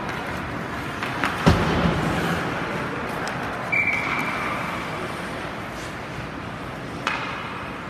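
Ice rink during a hockey game: a loud bang about a second and a half in, then a referee's whistle blown once, a single steady high note that fades away within about a second, stopping play. A smaller knock comes near the end.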